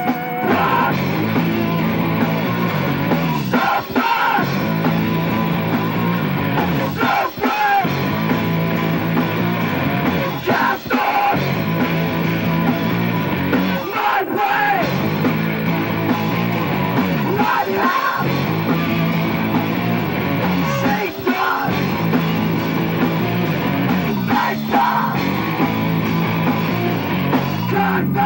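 Live rock band playing loudly: electric guitars, bass and drum kit, with shouted lead vocals. The music drops out briefly every few seconds.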